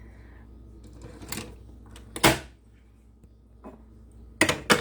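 Clicks and clunks of a Philips L'OR Barista capsule coffee machine being handled as a coffee pod is loaded: a light click about a second in, a louder clunk just after two seconds, and two sharp clacks near the end.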